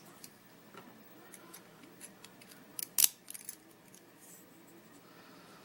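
Light metallic clicks and taps from small lock-core parts and tools being handled, with one sharp metal click about three seconds in.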